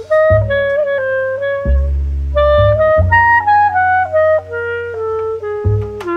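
Background music: a melody of held notes on a reedy wind-like lead, stepping downward over the second half, over sustained low bass notes.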